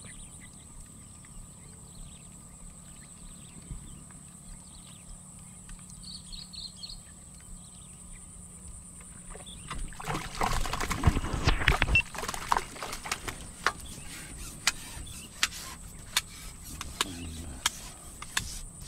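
A hooked fish thrashing and splashing in a small patch of open water among floating water plants, a loud splashing burst about ten seconds in that lasts about two seconds. After it, a string of sharp ticks and light splashes as the fish is played and lifted out on the line. A steady high-pitched whine sits under everything.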